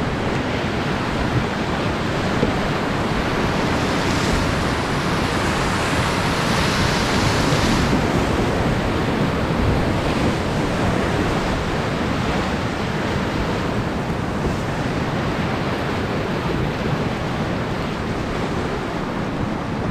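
River whitewater rushing and churning around a raft running a rapid: a steady, loud rush of water that turns hissier for a few seconds about four seconds in.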